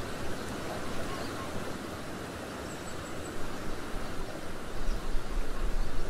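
Outdoor lakeside ambience: a steady wash of wind and water noise. Low rumbling wind buffets the microphone over the last second or two.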